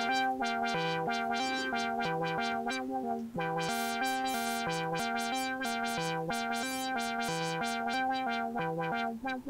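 Moog Subharmonicon analog synthesizer running a repeating sequenced pattern of buzzy notes. A low note steps back and forth in a steady rhythm under held upper tones, with subharmonics played along with the base pitches. The sound turns brighter for a moment about four seconds in.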